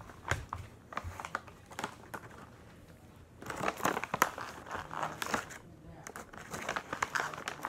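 Rustling and crinkling of things being handled close to the microphone, with light clicks and taps, busiest around the middle and again near the end.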